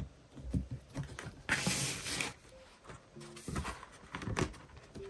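Hands handling a hardcover sketchbook: fingernails tapping and rubbing on the cover with a few soft knocks, a brief rustle of paper, then its pages flipping as the book is opened.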